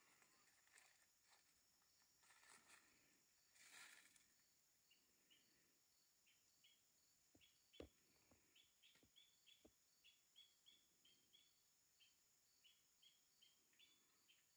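Faint insect chorus: a steady high drone, joined about five seconds in by short chirps repeating two to three times a second. Rustling early on, and a few sharp clicks near the middle, one of them the loudest sound.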